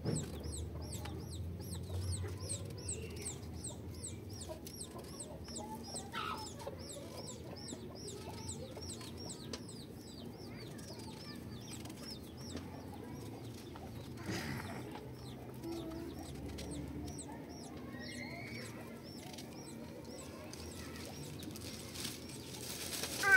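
Chickens clucking and cheeping: many quick, high calls in a steady stream that thins out after about fourteen seconds, over a faint low hum.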